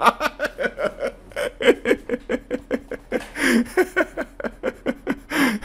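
A man laughing in a long run of short, quick chuckles, about five a second, with a louder breathy burst of laughter around the middle.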